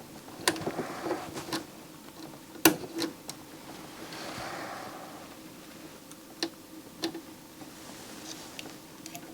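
Scattered sharp clicks and light taps of test probes and small tools being handled on a tabletop, the loudest about two and a half seconds in, over a faint steady hum.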